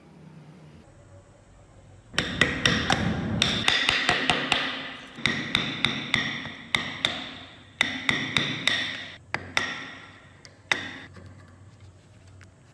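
Hammer driving a steel punch into an old kukri's metal handle collar on a steel block, knocking out the rotted wood and rust packed inside. It is a quick run of ringing metallic blows in short bursts, starting about two seconds in and stopping shortly before the end.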